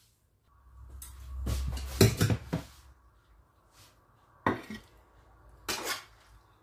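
A serving utensil scraping and clinking against a stainless steel frying pan as creamy penne is spooned out onto a plate. There is a scraping rumble with a cluster of sharp knocks, loudest about two seconds in, and two more clinks later on.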